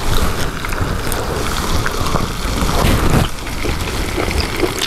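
Wind buffeting the clip-on microphone, a rough low rumble that gusts hardest at the start and again about three seconds in.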